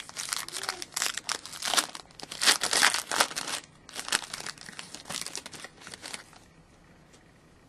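Plastic wrapper of a Panini Certified hockey card pack crinkling and tearing as it is ripped open and peeled off the cards, in two spells with a short pause between them; it stops after about six seconds.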